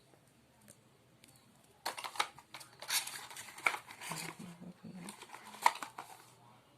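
Handling noise: a run of sharp clicks and taps with rustling in between as small hard objects are picked up and handled, starting about two seconds in and stopping shortly before the end.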